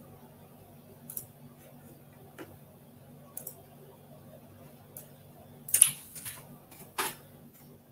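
Scattered, irregular clicks and taps from handling things at a desk, the two loudest about six and seven seconds in, over a faint steady low hum.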